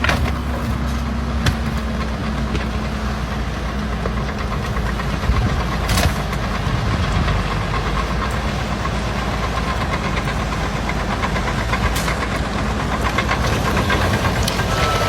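Engine running steadily with a low hum, broken by a few sharp clicks.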